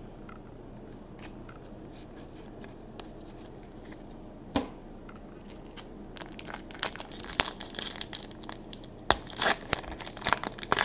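Plastic trading-card pack wrapper being torn open by hand, crinkling and ripping in a run of quick, crackly bursts over the second half. Before that, faint handling of the cards and one sharp tap about four and a half seconds in.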